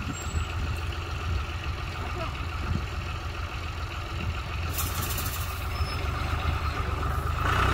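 Farm tractor's diesel engine running steadily while pulling a mounted cone-hopper fertilizer spreader. About five seconds in a brief high hiss starts as the spreader begins throwing fertilizer.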